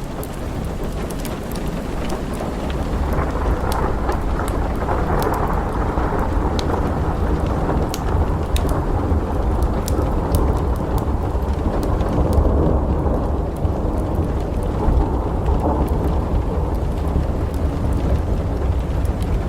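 Steady rain with a long, low rolling rumble of thunder that swells a few seconds in, over scattered sharp crackles from a wood fire.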